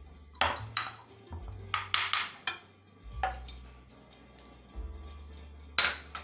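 Kitchen utensils clinking and knocking: a metal spoon against a pan and a knife against a china plate, a run of sharp clinks in the first half and one more near the end, over background music with a low bass line.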